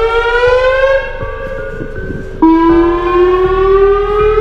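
WS 2000R warning siren sounding a chord of several tones that climb slowly together in pitch. About a second in it grows quieter, and about two and a half seconds in it cuts back in loudly at a lower pitch and starts climbing again.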